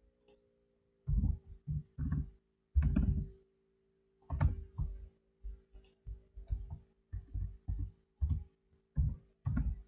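Typing on a computer keyboard: irregular keystrokes in short runs, with a pause of about a second near the middle.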